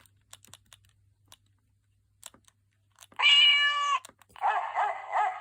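Siemens C55 mobile phone: a few soft keypad clicks, then about three seconds in a preloaded ringtone starts from the phone's small speaker, a held electronic tone lasting just under a second followed by a warbling run of rising-and-falling chirping notes.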